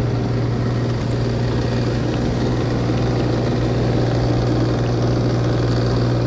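A steady low hum from running machinery, constant in level with no breaks.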